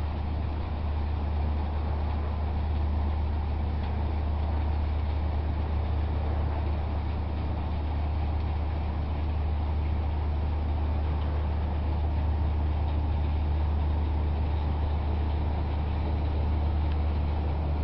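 Steady low drone of a Great Lakes bulk carrier's diesel engines as the ship moves past close by. A deep even hum sits under a faint wash of machinery noise, with no change in pitch or level.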